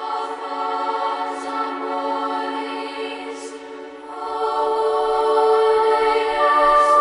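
Background music of sustained choir-like chords, swelling louder when the chord changes about four seconds in.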